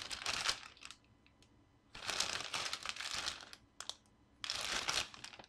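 A clear plastic zip bag holding smaller baggies of screws crinkles as it is handled and turned over. The crinkling comes in three spells with short pauses between, and there are a couple of light clicks in the middle pause.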